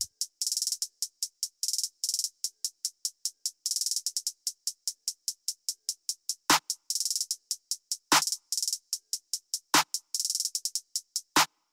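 Background music: a beat of fast, crisp high ticks, with a few heavy hits about every second and a half in the second half.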